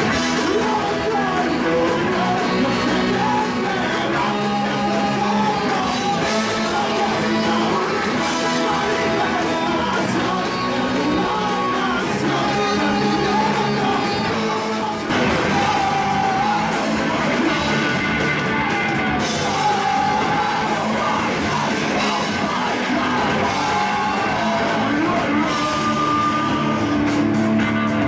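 Live ska punk band playing loudly in a bar, with a trumpet playing melody lines over electric guitar and shouted vocals.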